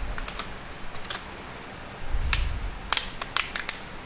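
Sharp plastic clicks and light knocks of a smartphone being handled and a micro-USB charging cable being fitted into its newly replaced charging port, with a few low bumps about two seconds in.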